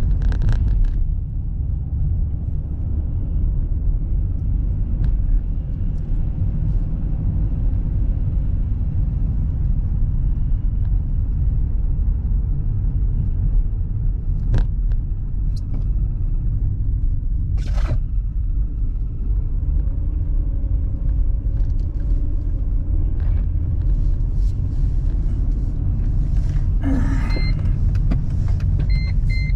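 Steady low road and engine rumble of a car being driven, heard from inside the cabin, with a couple of short clicks midway.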